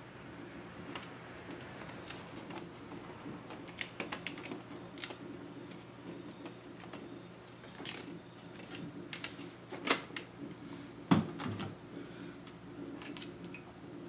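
Scattered small clicks and light knocks of laptop plastic and metal parts being handled and lifted during disassembly, with two louder knocks about two-thirds of the way through. A steady low hum runs underneath.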